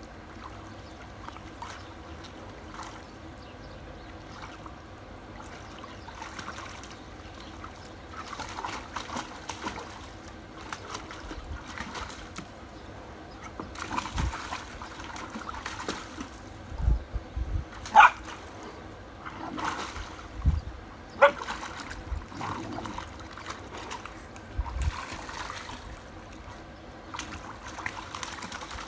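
A puppy splashing and sloshing about in a small plastic paddling pool, in irregular bursts of splashes that grow louder about halfway through, with the sharpest splashes a little past the middle.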